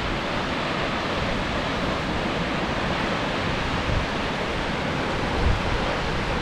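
Steady rushing noise of Carrington Falls, a 90-metre waterfall, heard from the lookout above the gorge. Wind bumps on the microphone about four and five and a half seconds in.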